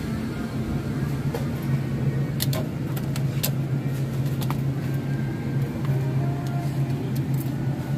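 Steady low hum of a supermarket's glass-door freezer cases running, with a few light plastic clicks about two and a half to three and a half seconds in as ice cream tubs are handled on the shelf.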